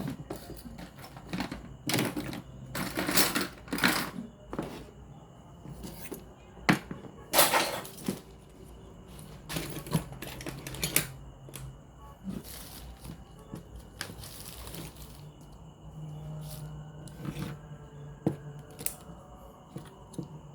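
Irregular clicks, taps and scraping of hands and tools working on a portable radio cassette player's plastic casing and parts, with a few louder knocks.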